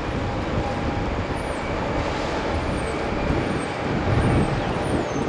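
Steady roar of a Boeing 777's jet engines, mixed with gusty wind rumbling on the microphone; the roar swells briefly about four seconds in.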